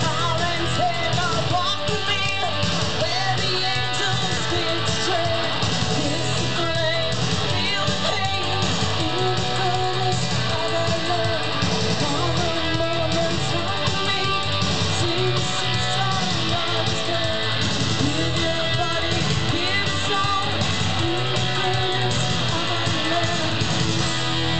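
Gothic rock band playing live: electric guitars and bass over drums, with a woman singing.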